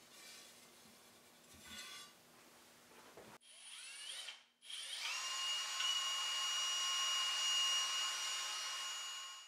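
Cordless drill with a paddle mixer stirring ceramic glaze in a bucket. It starts about three seconds in with a brief spin-up and a short stop, then runs at a steady whine until just before the end.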